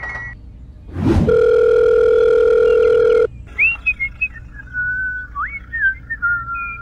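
Added sound effects: a quick whoosh, then a loud, steady electronic tone held for about two seconds that cuts off sharply, followed by a string of gliding, whistled notes.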